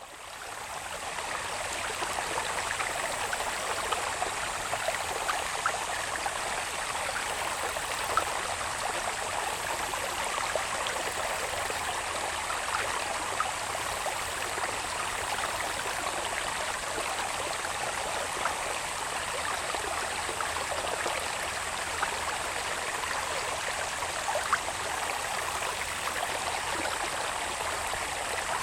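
Water babbling along a small irrigation channel, a steady rushing with constant small splashes, fading in over the first couple of seconds. A thin, steady, high-pitched insect drone runs over it.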